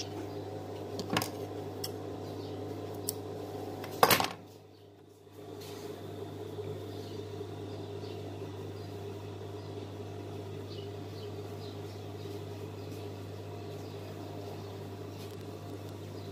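Industrial lockstitch sewing machine's motor humming steadily, with light metallic clicks as the fabric is handled at the needle. There is a sharp click about four seconds in, and the machine's sound briefly dips after it.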